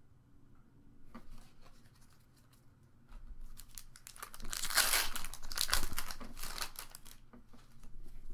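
Foil Pokémon booster pack wrapper being torn open and crinkled by hand, a few light crackles at first, then a dense stretch of crinkling and tearing in the middle that fades toward the end.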